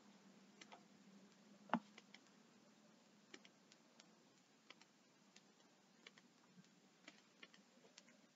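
Near silence: faint room tone with small, irregular clicks and ticks scattered through it, and one sharper click about two seconds in.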